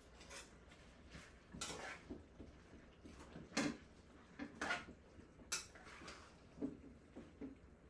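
Metal pots and cooking utensils clanking and clinking on the stove top, several separate knocks about a second apart; the loudest comes about three and a half seconds in.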